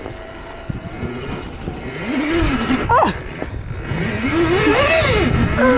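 Electric minibike's motor whining as the throttle is opened and released on snow: the pitch rises and falls twice, the second swell longer and higher than the first.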